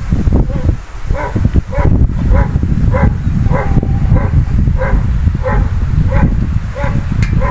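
Strong wind buffeting the microphone with a heavy low rumble. Over it a dog barks in a steady run, about two to three short barks a second.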